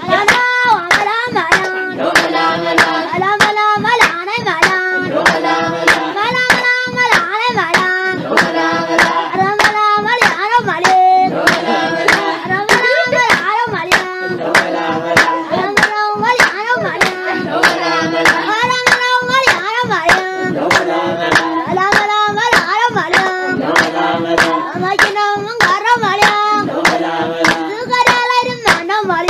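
Singing voices carrying a melody over steady hand clapping, about two claps a second, keeping the beat.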